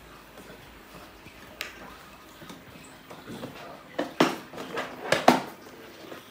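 Plastic feeding tray of a Babyhug baby high chair being fitted onto the seat: a light click, then a quick run of hard plastic knocks and clicks as the tray goes on and locks into place.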